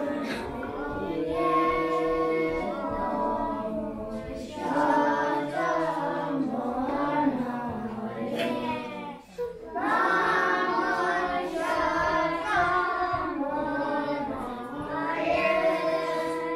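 Children's voices singing a melody together as a group, with a brief pause a little past halfway through.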